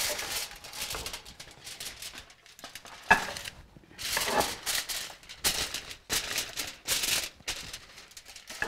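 Aluminium foil crinkling and rustling in irregular bursts as it is pressed and crimped over a dish, with a single sharp knock about three seconds in.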